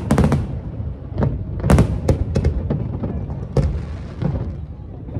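Aerial fireworks bursting: a rapid, irregular series of sharp bangs and crackles, about a dozen in five seconds, the loudest right at the start and just before two seconds in.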